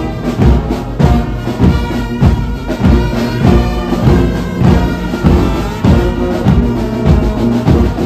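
Large brass band playing live: massed horns and tubas sounding sustained chords over a steady drum beat of about two strokes a second.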